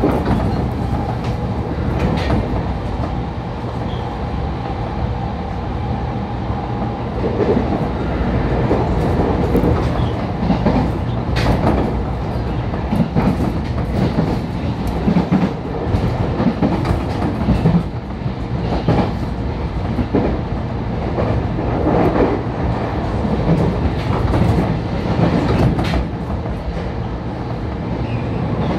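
Onboard running sound of a JR Kyushu 811 series electric train's motor car at speed: steady rumble of wheels and running gear, with a thin steady motor whine over the first several seconds and repeated clacks as the wheels cross rail joints and points.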